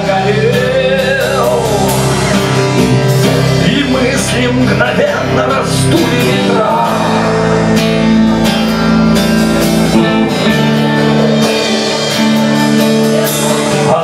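Live rock band playing: strummed acoustic-electric guitar, a bowed violin melody with sliding notes, and a drum kit.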